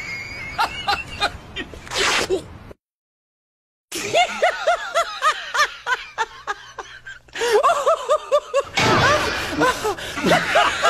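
A person's voice making fast, repeated high-pitched sounds like laughter, without words. The sound cuts out completely for about a second about three seconds in, then goes on.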